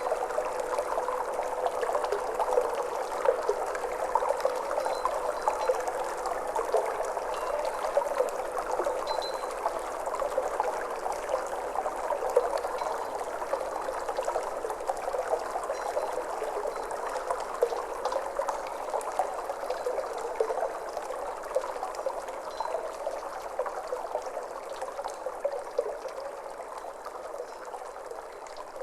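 Steadily flowing, trickling water, with the lingering hum of a Tibetan singing bowl dying away in the first few seconds; the water slowly grows quieter toward the end.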